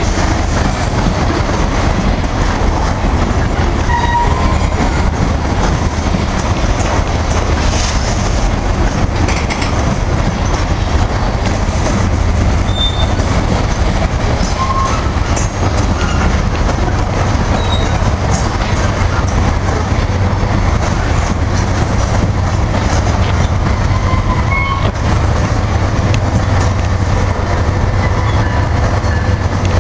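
Freight train of covered grain hopper cars rolling past: a steady, loud rumble of steel wheels on the rails, with a few brief wheel squeals.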